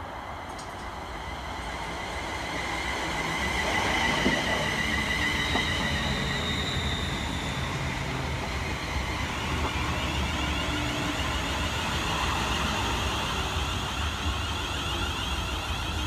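London Northwestern Railway Class 350 Desiro electric multiple unit running along the platform, its traction motors whining over the rumble of wheels on rail. The sound grows louder over the first few seconds as the train draws near, peaks about four seconds in, then holds steady as the coaches pass slowly.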